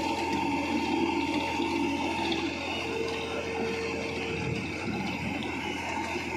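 A tractor engine runs steadily while driving a towed automatic brick-making machine, giving a steady rushing noise with a constant whine. A second, higher tone comes in for about a second and a half in the middle.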